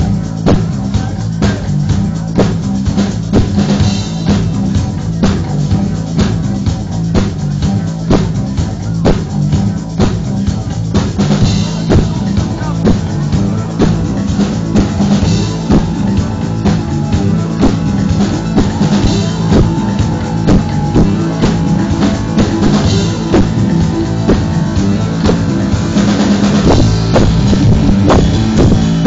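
Live rock band playing loud: a drum kit keeps a steady beat with bass drum and cymbals under amplified electric guitars.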